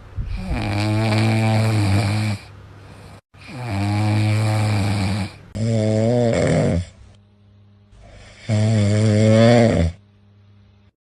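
An animal snoring loudly: four long, rasping pitched snores, each one to two and a half seconds, with quiet breaths between them.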